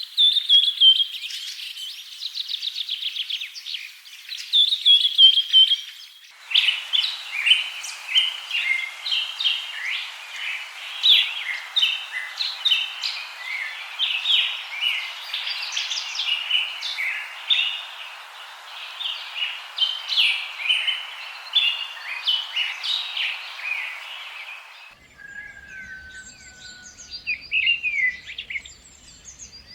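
Songbirds chirping and singing: first a fast repeated trill, then from about six seconds a dense chatter of many short chirps over a hiss, which changes abruptly near the end to a few sparse calls.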